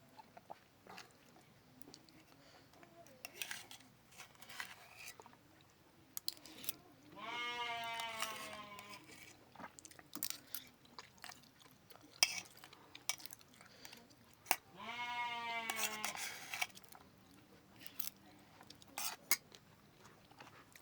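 Close-up chewing and mouth smacks of someone eating pepes ikan mas, with small crunches. Twice, about seven and fifteen seconds in, a goat bleats one long wavering call of about two seconds, louder than the eating.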